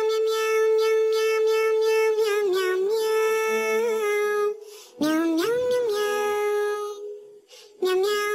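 Background music in a meow-style remix: a high sung vocal holds long notes with short slides, breaking off briefly twice.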